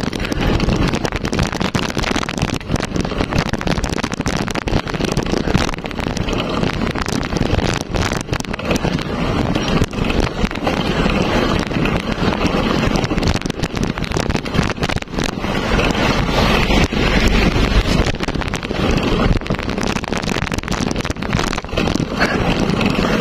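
Wind buffeting the microphone of a camera on a moving bicycle: a steady rushing noise broken by constant irregular gusts.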